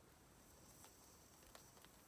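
Near silence: faint background hiss with two faint ticks, one about a second in and one near the end.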